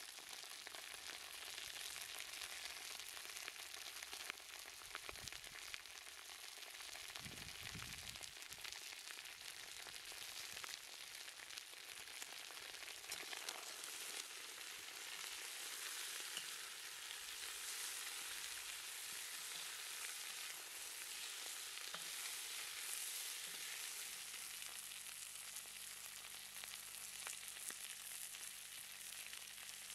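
Chicken pieces, carrots and garlic sizzling in a wok over an open wood fire: a steady frying hiss with fine crackles, with the food being stirred about halfway through.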